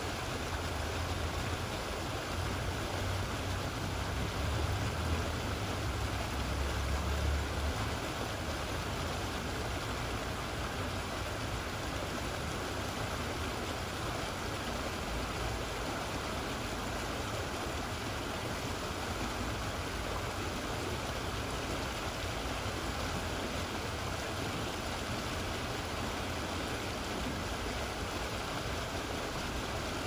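Snowmelt runoff creek running high, a steady rush of water splashing over rocks in small white-water cascades. A low rumble sits under it for about the first eight seconds.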